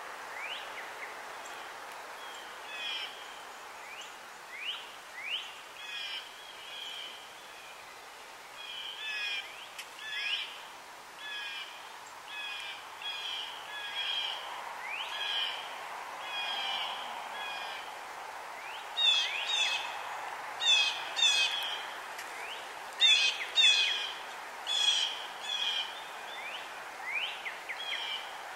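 Wild birds chirping and calling, many short rising notes repeated throughout, growing louder about two-thirds of the way in, over a steady outdoor background hiss.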